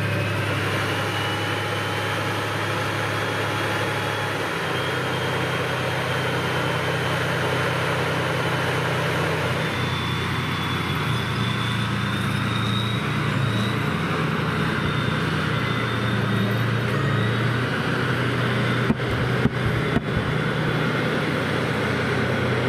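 Tank driving off on a dirt road: its engine runs with a steady low drone and a faint high whine. A few sharp knocks come near the end.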